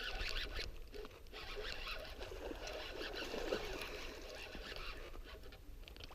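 Water splashing and sloshing around a kayak as a hooked bass is fought to the boat, with irregular light ticks and rustles throughout.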